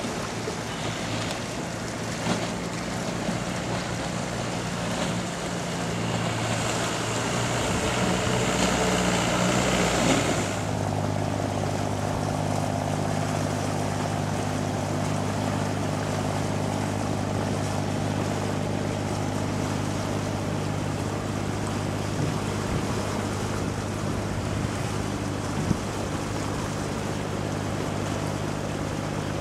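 Engine of a small river cargo boat passing close, with the rush of its bow wash swelling over several seconds. About ten seconds in, the sound changes abruptly to a steady low vessel engine drone.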